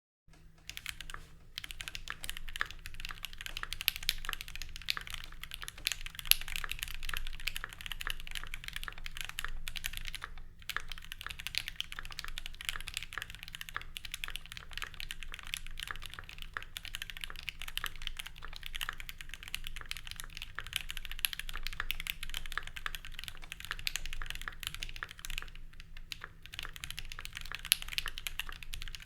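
Steady, fast typing on a Keychron Q1 V2 custom mechanical keyboard with lubed Gateron Ink Black V2 linear switches, Durock V2 stabilizers and ePBT keycaps. The keystrokes run in quick, irregular runs of clicks, with a few brief pauses between runs.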